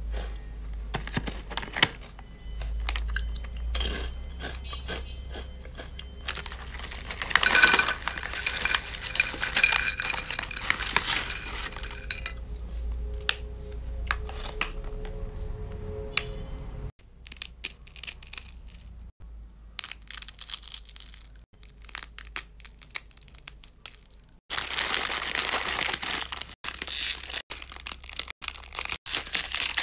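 Crispy fried snacks shaken out of a plastic snack bag and clattering onto a glass plate, with the bag crinkling. In the last few seconds comes loud crinkling of a plastic instant-noodle packet as it is cut open with scissors.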